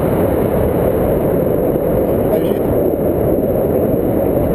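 Steady low wind rumble on the microphone of a camera held out in the airstream of a paraglider in flight.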